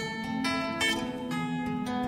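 Background music: plucked acoustic guitar notes, strummed and ringing on.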